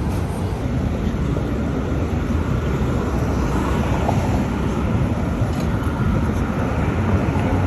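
Steady low rumble of vehicle noise, with no distinct strokes or tones.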